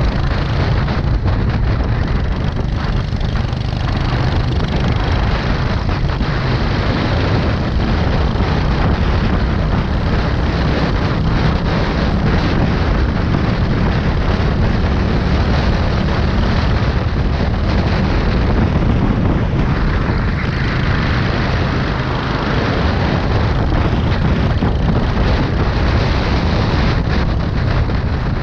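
Go-kart engine running hard at racing speed, heard close up from on board the kart, with wind rushing over the microphone.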